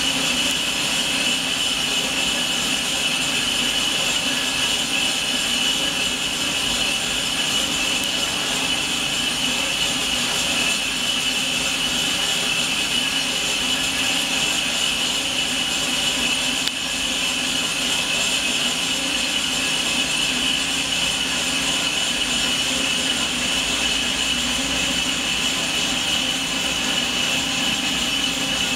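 Portable on-site boring machine running steadily inside a large press bore, machining its bronze bushing: a continuous mechanical whine with a steady high tone over a low hum.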